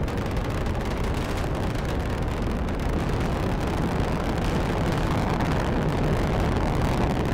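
Falcon 9 rocket's first-stage engines firing in powered ascent, a steady, deep rumble that holds without a break.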